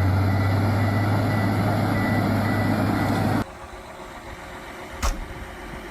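A heavy machine's engine running steadily with a strong low hum and a faint high whine, which cuts off abruptly about three and a half seconds in. After it comes a quieter low rumble, with a single sharp knock about five seconds in.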